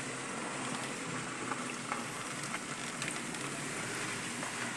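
Car rolling slowly along a dirt road, heard from inside the cabin with the side window open: steady tyre and road noise with a low engine hum and a few small crackles.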